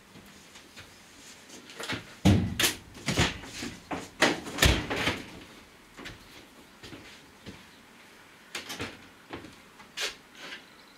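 Knocks and thuds of a plywood wall panel being handled and set down inside a bare metal van body. They are loudest in a cluster about two to five seconds in, with a few lighter knocks near the end.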